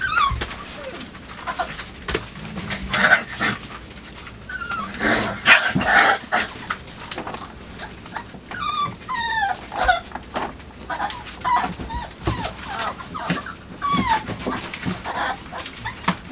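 Five-week-old chocolate Labrador puppies whining and yipping in short falling cries while they tussle, over a steady scuffle of scrabbling paws and a chewed cardboard box.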